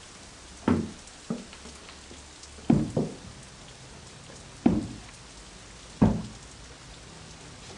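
A series of heavy knocks or thuds at uneven intervals, about six in all, two of them in a quick pair about three seconds in, each dying away with a short boom.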